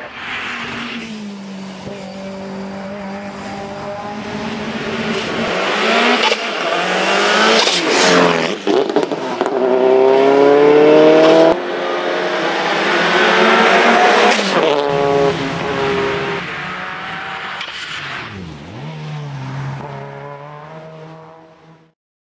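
Race car engines at full throttle on a hillclimb, several cars one after another. The revs climb and drop again and again with the gear changes, louder as each car passes. The sound fades out near the end.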